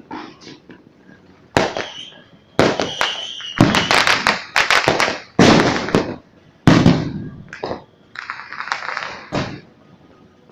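Fireworks going off: a run of sudden loud bangs about a second apart, each trailing off, followed near the end by a stretch of crackling.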